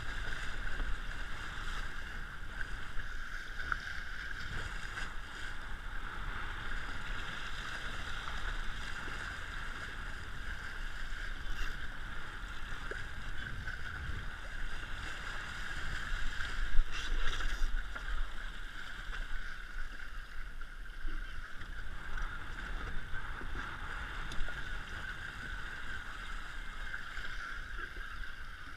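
Water rushing along an RS100 sailing dinghy's hull as it sails through choppy water, with low wind rumble on the camera microphone. A few short knocks and splashes break through, the loudest about 17 seconds in.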